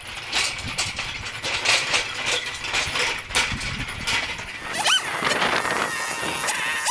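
Chainsaw running and cutting oak in uneven bursts. A short squeal rises and falls about five seconds in and again near the end.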